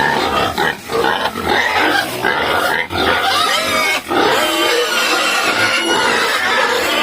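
Several pigs squealing, their high, wavering calls overlapping almost without a break.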